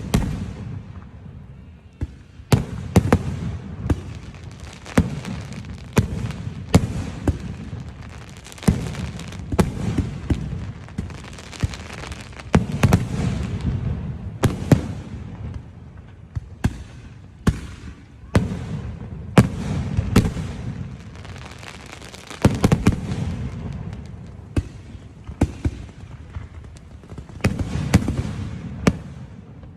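Aerial fireworks going off in a continuous barrage: sharp bangs and deep booms one after another, about one a second or faster, over a steady rumble and crackle of shells bursting.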